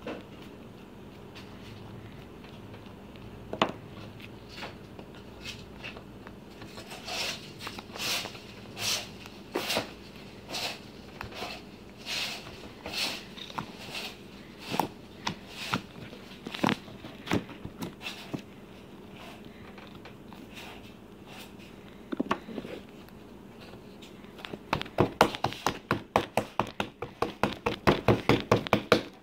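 Purple slime being poked, pressed and folded by hand, giving short wet clicks and pops as air pockets squeeze out: spaced out through the middle, then a quick run of several pops a second near the end.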